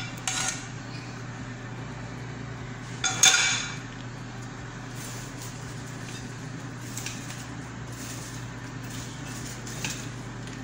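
A frying pan and a metal utensil clink together as caramel is scraped out of the pan: a ringing clink just after the start, and a louder double clink about three seconds in. After that come soft clicks and rustling as popcorn is tossed with a fork on a plate, over a steady low hum.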